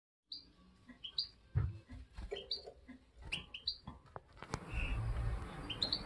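Caged goldfinch and canary giving short, repeated chirping calls, several a second at times, with a couple of soft knocks. A low steady rumble comes in about halfway.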